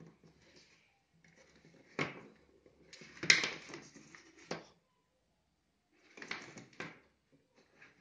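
Plastic drip-irrigation fittings and tubing handled and pushed together by gloved hands: scattered clicks and rubbing, with a sharp click about two seconds in, the loudest clatter a little after, and another short burst of handling near the end.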